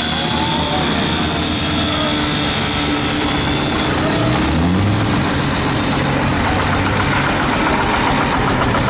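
Tractor engine running steadily, with the revs rising briefly about four seconds in.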